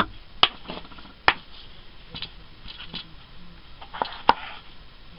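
Knife slicing red potatoes on a cutting board: sharp, irregular taps as the blade goes through and meets the board, roughly one a second.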